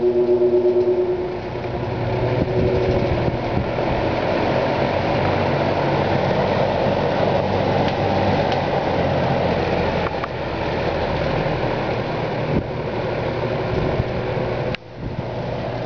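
Vintage 1950s–early 60s McGraw-Edison Zero 20-inch two-speed box fan running on high: a steady rush of air from the blades over the electric motor's low hum. A pitched hum stands out in the first few seconds as it comes up to speed. Near the end there is a click and a brief dip in level.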